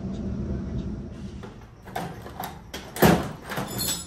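A steady mechanical hum that dies away in the first second or so, then a run of sharp knocks and clatters, the loudest about three seconds in.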